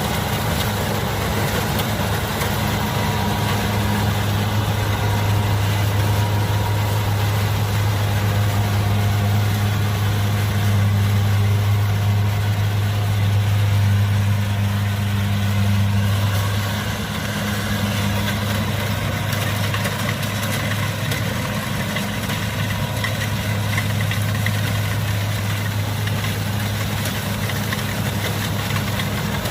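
Kubota DC70 combine harvester's diesel engine running steadily at working speed while harvesting rice, with a dense mechanical din over a constant low hum. The level eases slightly a little past halfway.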